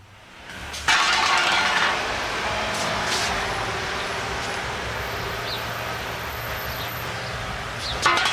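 City street traffic fading in, with a loud hiss about a second in and another near the end over a steady rumble of vehicles.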